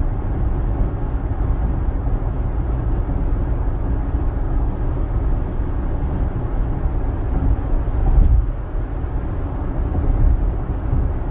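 Steady low rumble of tyre and wind noise inside the cabin of a 2020 Range Rover Evoque cruising at highway speed, with a brief thump about eight seconds in.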